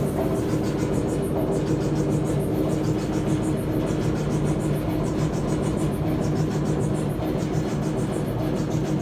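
LG clothes dryer running, its drum turning with a steady hum and a faint, repeating high squeak. The squeak comes from a worn front drum support roller.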